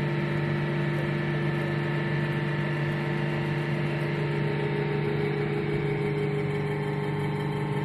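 An engine idling steadily: an even hum with several fixed tones that neither rise nor fall.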